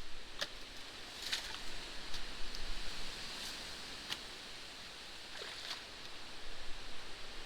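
Canal water running and splashing through a torn-down beaver dam, a steady hiss of flowing water with a few sharp clicks scattered through it.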